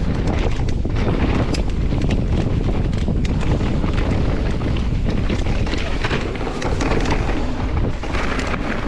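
Wind rushing over the microphone while a mountain bike rides along a dirt trail, with a steady rumble and many quick clicks and rattles from the bike.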